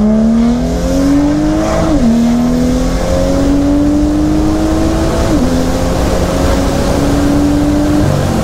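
BMW M2's turbocharged N55 inline-six, running an MHD Stage 2+ tune with a catless downpipe, heard from the cabin on a full-throttle pull. The engine note climbs steadily, drops sharply at two quick upshifts about 2 and 5 seconds in, climbing again after each, then falls away as the throttle is lifted near the end.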